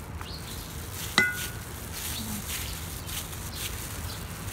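A plastic spoon knocks once into a stainless steel mixing bowl about a second in, and the bowl rings briefly. Faint rustling runs over steady low background noise.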